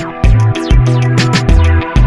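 Background music with a steady beat: a bass line roughly two notes a second under sustained synth or guitar chords and crisp percussion ticks.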